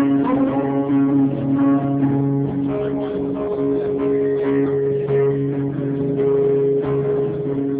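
Live guitar music: an instrumental passage with long, sustained notes, recorded on a phone so it sounds thin and muffled.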